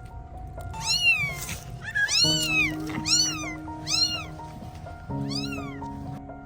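A cat mewing: about five high-pitched calls, each rising then falling in pitch, over background music.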